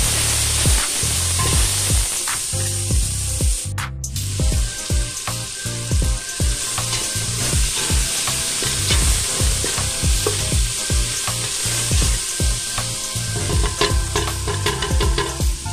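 Sliced onions and tomatoes sizzling in hot oil in a stainless steel pot, stirred and scraped with a wooden spoon. The sizzle cuts out briefly about four seconds in.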